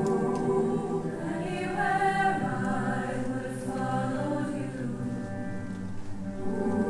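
Mixed high-school choir singing a soft, sustained chordal passage, the voices holding and moving between notes. It sings more quietly through the middle and swells again near the end.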